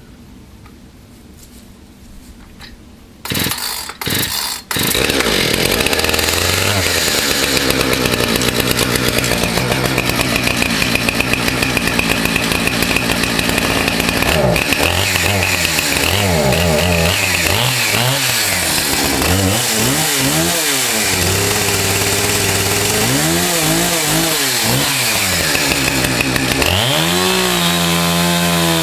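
Two-stroke chainsaw starting: it fires in two short bursts about three seconds in and catches at about five seconds. It then runs, its engine pitch swinging up and down repeatedly as it is revved.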